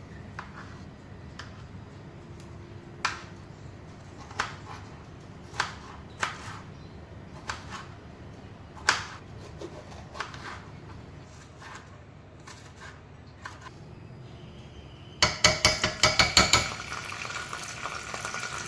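Kitchen knife chopping vegetables on a cutting board, one cut at a time, about a second apart. About fifteen seconds in comes a quick run of clattering strikes, then a steady sizzle as the chopped vegetables go into a hot pan.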